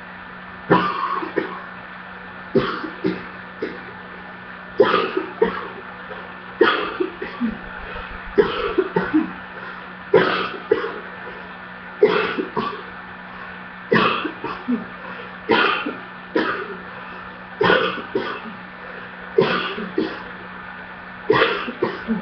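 A person coughing hard, over and over: a fit of two or three sharp coughs about every two seconds, with a steady low hum underneath.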